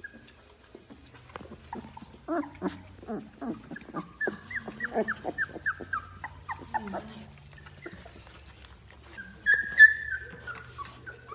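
Very young yellow Labrador retriever puppies whimpering and squeaking: a rapid run of short high-pitched squeaks, then one louder squeal near the end.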